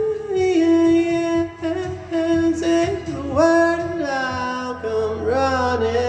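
A solo voice singing a slow pop melody in long held notes that slide between pitches, with little accompaniment and a steady low hum underneath.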